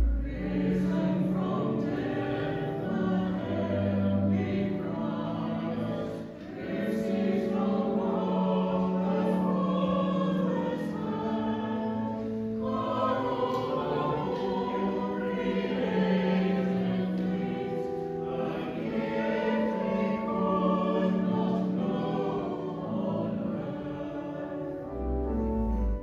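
A choir singing sacred choral music in long held chords.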